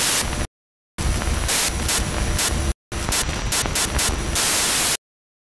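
Loud television static hiss in three bursts, broken by dead silence about half a second in and briefly near three seconds, with a thin high whine in it; it cuts off abruptly about five seconds in.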